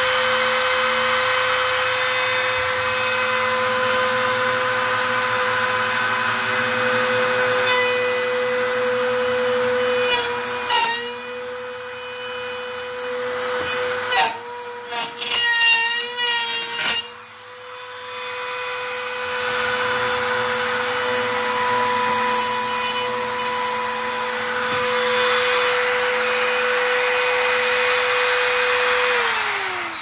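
Compact trim router running at a steady high whine as it cuts a groove into a chest freezer's top trim. In the middle the pitch dips and wavers several times with sharp clicks as the bit bites into the material, and near the end the motor is switched off and winds down.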